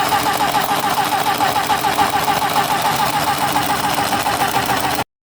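Battery-powered handheld mini sewing machine running continuously as it stitches through fabric, a fast, even mechanical rhythm. It cuts off abruptly about five seconds in.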